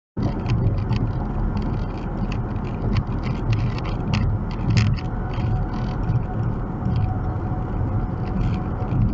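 Road and engine noise inside a Chevrolet Equinox cruising at about 64 mph on a highway: a steady low rumble with scattered short ticks. It cuts in abruptly just after the start.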